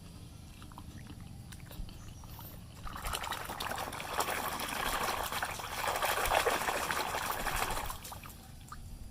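Water pouring and trickling over a muddy plastic toy car as it is rinsed clean, starting about three seconds in and stopping about eight seconds in, with a few small handling clicks before it.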